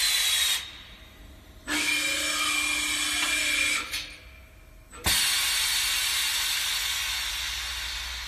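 Catalytic converter and muffler spinning machine working through its cycle. A hiss stops about half a second in, then a motor whine with gliding tones runs for about two seconds as the tool carriage moves up toward the tube in the chuck. About five seconds in there is a sharp click, followed by a steady hiss that slowly fades.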